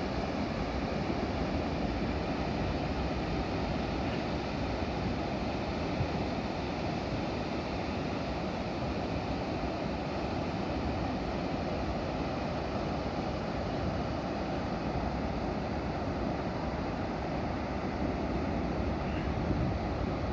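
Wind blowing steadily across the microphone over the continuous rumble of surf, with wind and waves whipped up by an approaching typhoon.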